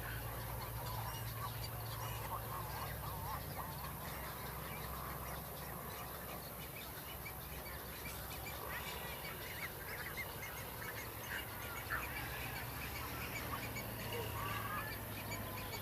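Colony of cattle egrets calling: many short, harsh, croaking calls overlapping continuously, over a steady low hum.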